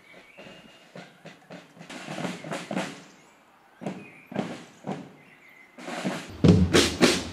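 Marching band snare and tenor drums beating a march in groups of strikes with short pauses, growing louder near the end as the drummers come closer.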